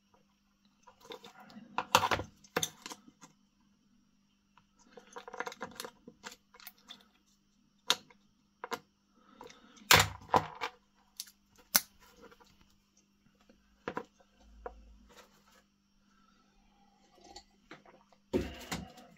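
Small hard clicks, taps and rustles of a UK three-pin plug being handled. The plastic plug body knocks against the bench and a cartridge fuse is pushed into its clips. The loudest clicks come about two seconds in and about ten seconds in.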